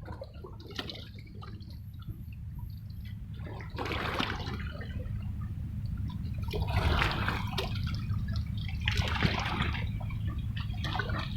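Sea water washing and splashing in several surges, about every two to three seconds, over a steady low rumble.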